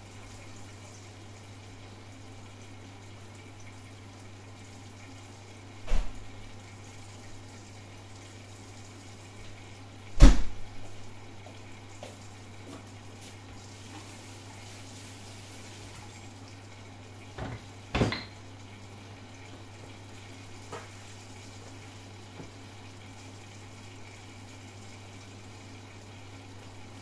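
Kitchen clatter of dishes and utensils: a few sharp knocks, the loudest about ten seconds in and a quick pair near 18 seconds, over a steady low hum.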